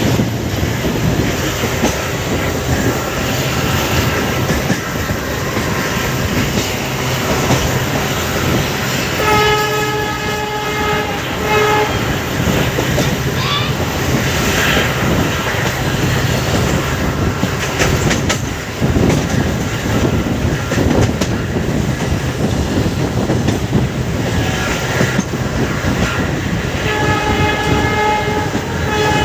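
Indian passenger train running at speed, heard from an open coach doorway: the steady running noise of the wheels on the rails. The WDP4D diesel locomotive's horn sounds up ahead, once about a third of the way in with a short break near its end, and again in a long blast starting near the end.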